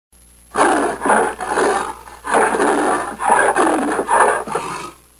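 Leopard call: a run of rough, rasping growls, one after another, with short breaks between them.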